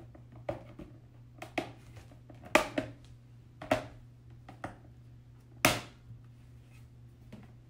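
Plastic panels of a grow-out pen being pushed together, their tabs snapping into place: a series of sharp clicks and knocks, about one a second, the loudest about six seconds in.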